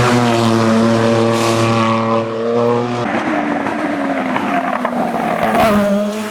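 Hillclimb race car engine at high revs: a strong, steady note for about three seconds that breaks off sharply, then a rougher, noisier engine sound.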